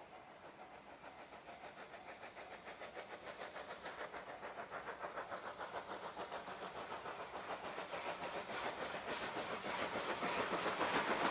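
JNR Class C57 steam locomotive approaching, its exhaust chuffing in a rapid, even rhythm that grows steadily louder.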